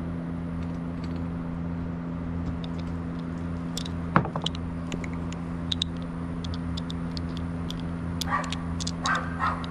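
Light metallic clinks and one sharp click as 7.3 Powerstroke injector parts and hold-down hardware are handled and set in place, over a steady low hum. A dog barks a few times near the end.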